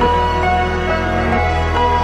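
Slow, soft instrumental background music: held notes changing one after another over a steady low bass.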